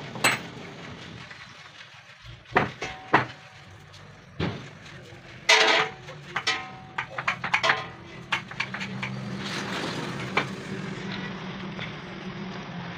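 Metal parts being knocked and struck during gear repair work: a run of sharp clanks, some ringing briefly, thickest in the middle. A steady low machine hum joins in the second half.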